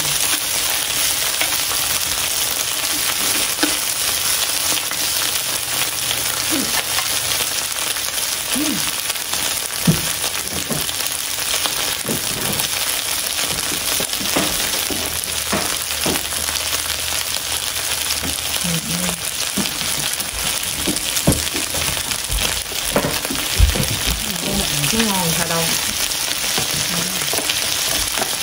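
Slices of beef and pork belly sizzling steadily in hot fat on high heat, with a few sharp clicks from utensils.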